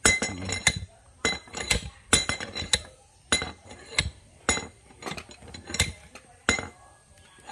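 Sharp metallic clinks and taps, about two a second at an uneven pace, each ringing briefly: metal tools or parts knocking against metal.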